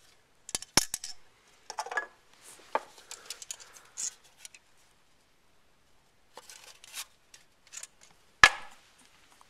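Shot-up aluminium soda cans being handled: scattered irregular clicks, clinks and crinkles, with one sharp knock near the end the loudest.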